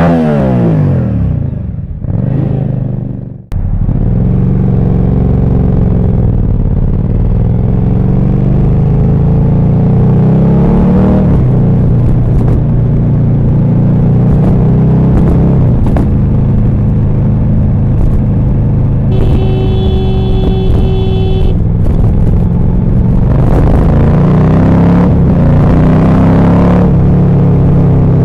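The first few seconds hold an intro sound of falling tones. From about three and a half seconds in, a Yamaha FZ-07's parallel-twin engine runs continuously under riding, its pitch rising and falling as the bike accelerates and eases off. About two thirds of the way through, the motorcycle's horn sounds one steady honk of about two seconds, a warning to a car.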